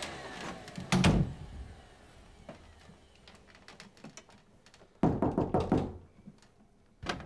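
A bathroom door being handled: a thud about a second in, a quick run of knocks and rattles around five seconds in, and another thud near the end.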